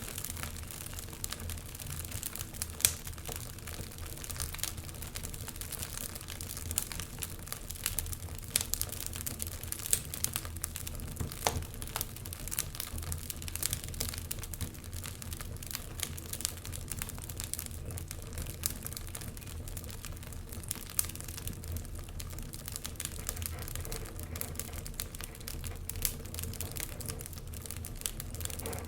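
Wood fire crackling in an open fireplace: irregular pops and snaps, one louder pop about three seconds in, over a steady low rumble.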